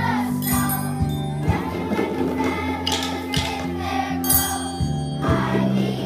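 Children's choir singing over a steady musical accompaniment, with triangles and small handheld bells ringing along. The bells and triangles come through brightest about half a second in, around three seconds and around four seconds.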